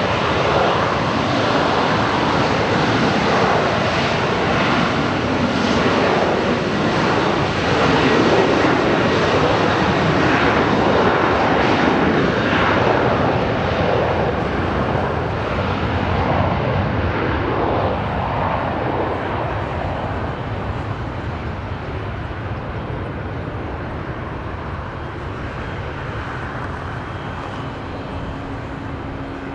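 Jet airliner's engines at takeoff power, a loud steady rumble for the first half that slowly fades as the plane departs.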